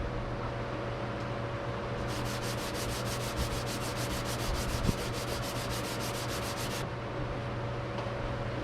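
Sanding on a surfboard's fiberglass-and-resin ding repair: a scratchy rubbing that becomes a fast, even rhythm of strokes for several seconds in the middle. A steady low hum sits underneath.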